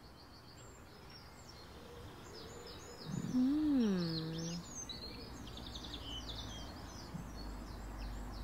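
Songbirds chirping and twittering over a soft steady hiss of outdoor ambience. About three seconds in, a low sound rises and then falls in pitch for about a second and a half, louder than the birds.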